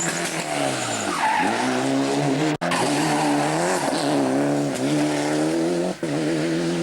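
Car engine revving hard, its pitch rising and falling through gear changes, with tyre skid noise. The sound breaks off briefly twice, about two and a half seconds in and again near the end.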